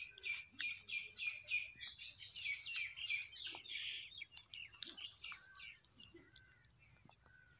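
Small birds chirping: a quick, busy run of repeated high chirps for the first four seconds or so, thinning out to scattered single calls after that.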